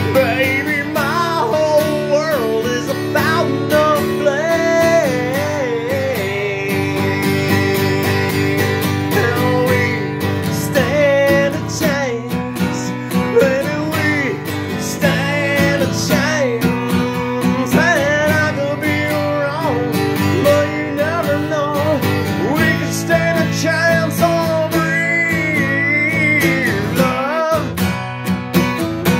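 Instrumental music: strummed acoustic guitar over steady low notes, with a lead melody above that bends and wavers in pitch.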